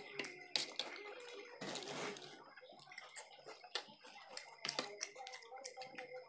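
Close-up eating sounds: irregular clicks of forks against plates, with wet chewing and slurping of chowmein noodles, the longest slurp about two seconds in. A faint steady hum runs underneath.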